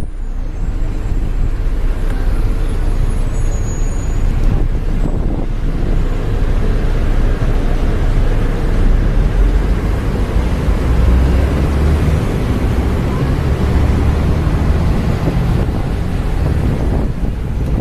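Steady city traffic and road noise heard from the open top deck of a moving sightseeing bus: a continuous low rumble of engines and tyres.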